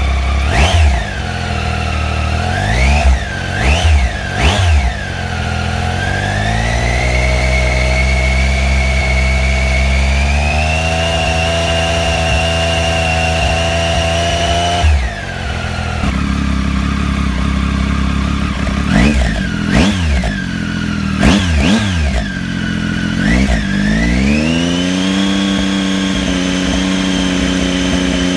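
Triumph Tiger 800 XC's inline three-cylinder engine, still cold, revved through its exhaust. It starts with quick throttle blips, then is held at raised revs that climb in steps. Its tone changes abruptly about halfway, then come more blips and a rise to steady held revs near the end.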